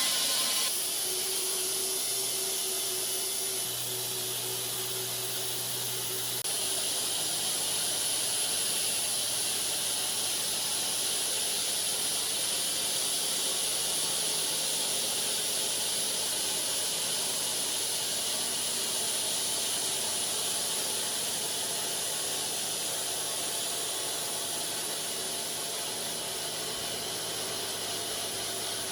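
Machinery running steadily: a strong, even hiss over a low hum, shifting slightly about a second in and again about six seconds in.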